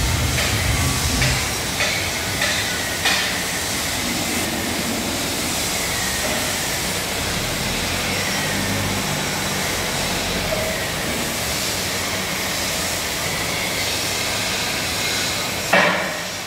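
Steady mechanical noise from a workshop as an overhead electric chain hoist lifts a wrapped bundled load. A few sharp metal knocks come in the first three seconds, and two loud bangs near the end.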